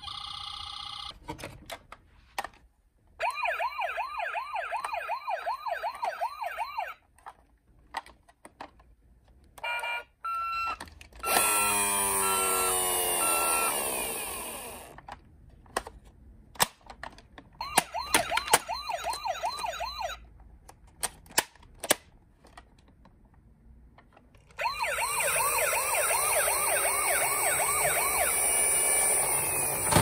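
Toy ambulances' electronic sirens sounding in several bursts of a few seconds each, mostly a fast warbling wail rising and falling a few times a second. Short plastic clicks and knocks come in between.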